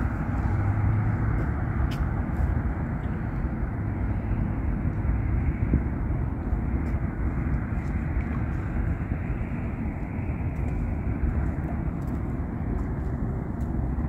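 River water flowing steadily: a continuous low, even rush of moving water with a few faint ticks.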